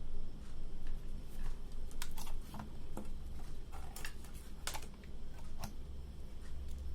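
Irregular light clicks and taps of a small plastic power adapter being handled and fitted back together by hand, over a steady low hum.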